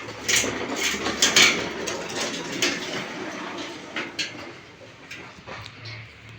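Sharp knocks, clicks and scraping from work on a bed base that has play in it, densest in the first second and a half and thinning out toward the end.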